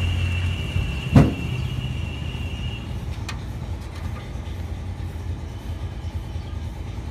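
Hand work with tools at a car's oil sump during an oil change: a sharp knock about a second in and a fainter click about two seconds later. Under them a steady hum with a high whine dies away about three seconds in, leaving an even low noise.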